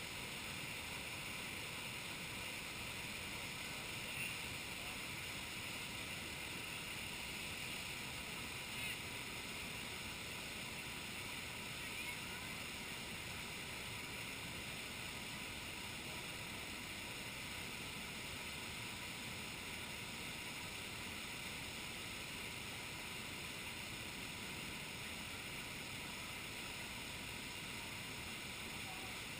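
Steady rush of running water, with a few faint ticks.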